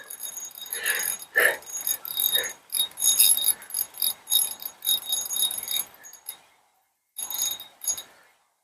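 Spinning fishing reel being cranked in uneven spurts, its gears rattling and ticking while reeling in a hooked trout. The reeling stops a little past six seconds in, with one more short spurt near the end.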